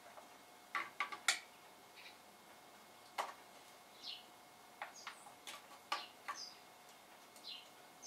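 Utensil tapping and scraping against a plastic container and plate as rice is spooned out, a scatter of short sharp clicks in two clusters. A bird gives a couple of short, high, falling chirps.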